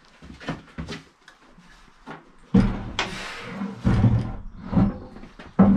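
Heavy cast-iron turret top of a Bridgeport milling machine being shoved by hand and seated onto its turret: a series of knocks and clunks with metal sliding on metal, loudest about two and a half seconds in and again near the end.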